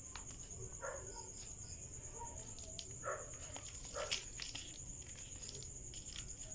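Steady high-pitched trill of night insects such as crickets, with softer repeating chirps above it. A few short, faint dog barks and light clicks come in between.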